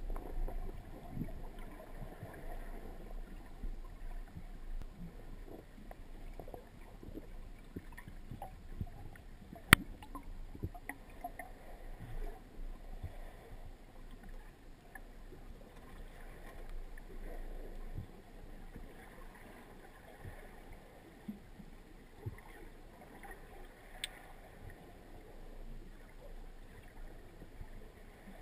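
Underwater ambience picked up by a speargun-mounted camera: a low, muffled water noise with scattered faint clicks, one sharp click about ten seconds in and a fainter one later.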